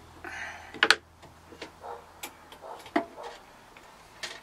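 Scattered clicks and knocks of metal parts being handled as an oil-system panel with pump, filter and gauges is fitted into its metal box, with a short scrape near the start and the sharpest clicks a little under a second in. A snug fit.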